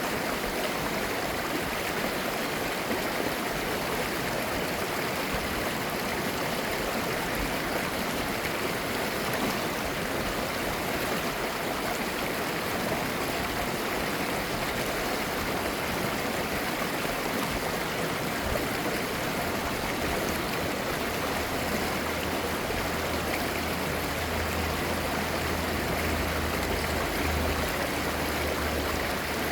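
Clear mountain-valley stream flowing and babbling steadily. A faint low hum joins the water noise about two-thirds of the way through.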